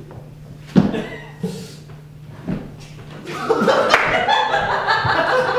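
Theatre audience laughing, swelling loudly about three seconds in, after a sharp thump and a few softer knocks from the stage.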